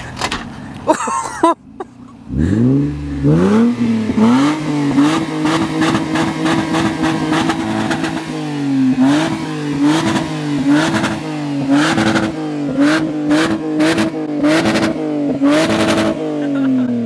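Lexus IS300's 2JZ-GE inline-six, its muffler cut off, revving hard while the car stands parked. About two seconds in the engine climbs fast and holds high rpm for several seconds. It is then blipped again and again, about one rev every half second to second, before falling back toward idle near the end.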